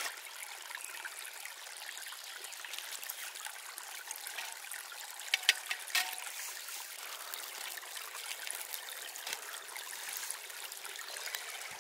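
A small stream trickling steadily. About halfway through come a few sharp clicks from a lighter being struck to light a wood stove.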